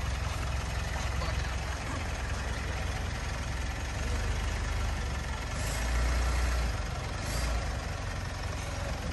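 Mitsubishi Strada pickup's engine running low and steady as the truck creeps and turns, the engine note swelling briefly about six seconds in.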